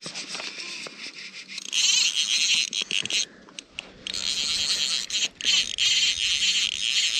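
Fly reel's clicker ratcheting rapidly as the spool turns, in two runs with a short pause about three seconds in.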